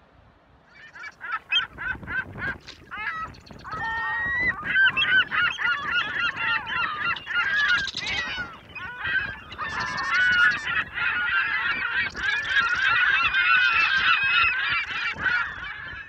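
A flock of birds calling, many overlapping calls at once, starting about a second in.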